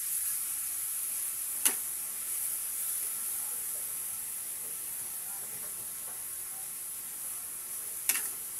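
Pork and bagoong (fermented shrimp paste) sizzling in a wok as a metal spatula stirs and scrapes through them. The spatula knocks sharply against the wok twice, a couple of seconds in and near the end.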